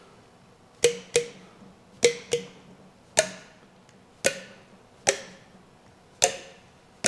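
Sharp metallic clacks from the valvetrain of a 1956 Chevrolet 235 inline-six cylinder head as a hand tool pops each valve down on its spring, about eight in all, the first four in two quick pairs, each ringing briefly. The valves are being checked for sticking: those that pop are free, and one that stays solid is stuck.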